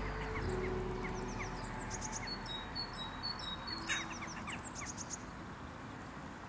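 Small birds chirping and singing, with a short high phrase repeated four or five times in the middle. The tail of background music fades out in the first second or so.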